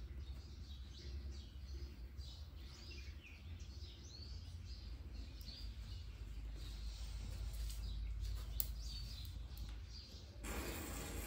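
Faint birds chirping over a low steady rumble. Near the end a louder, even hiss starts.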